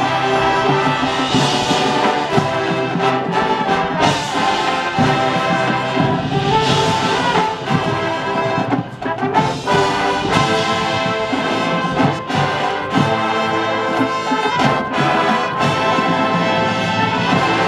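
High school marching band playing full sustained brass chords, with sharp percussion hits now and then.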